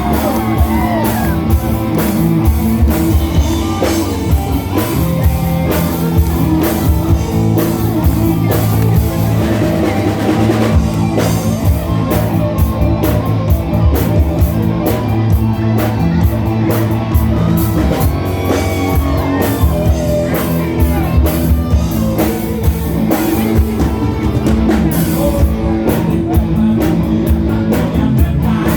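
Live rock band playing a song, with a drum kit, guitars, bass and a singer.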